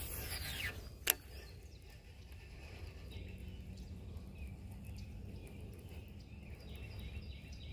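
A fishing cast: a brief whoosh as the crankbait flies out, then a single sharp click about a second in. After that comes a steady low rumble of wind on the microphone over a faint outdoor background.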